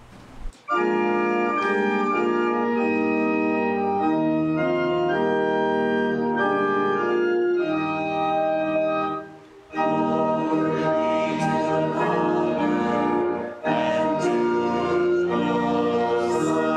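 Church organ playing a hymn in sustained chords, with a short break between phrases about nine and a half seconds in.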